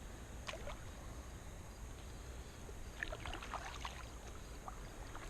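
Water lapping and splashing against a plastic kayak hull, with a cluster of small splashes and drips about three seconds in, over a steady low rumble.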